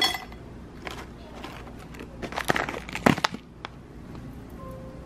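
Crunchy fried bean snacks poured from a packet onto rice in a ceramic bowl: the packet crinkles and the small hard pieces clatter down in scattered clicks and rattles, loudest about three seconds in.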